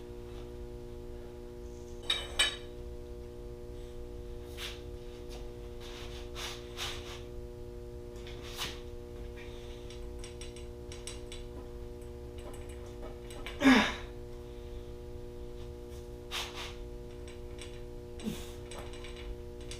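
Scattered clicks and clanks of hand tools on a 1JZ engine's crank pulley bolt and holding bar, over a steady hum. A short falling-pitch groan of strain comes about two-thirds of the way in and again at the end.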